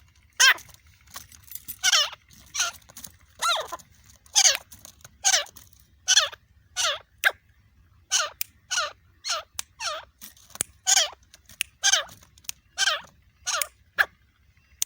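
Francolin (teetar) calling: a long, unbroken run of short, harsh notes, about two a second, many of them dropping in pitch.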